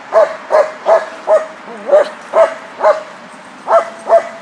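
Dog barking over and over, about nine barks at roughly two a second with a couple of short pauses, each bark dipping slightly in pitch.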